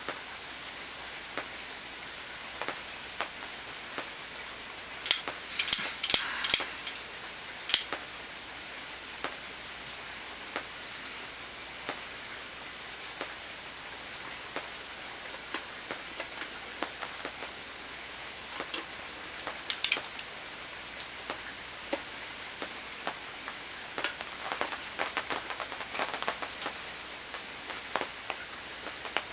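Rain falling on a tent canopy: irregular single drops tapping sharply over a steady hiss, with brief flurries of louder, quicker taps twice. A neighbour's fountain adds to the steady hiss underneath.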